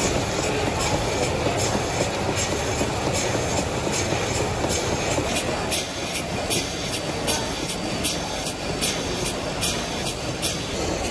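Stationary mill steam engine running: a steady mechanical rumble with a regular sharp click about every 0.8 seconds, clearer in the second half.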